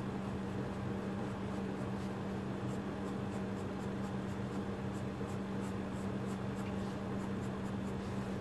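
Colored pencil scratching on paper in many quick shading strokes, over a steady low hum.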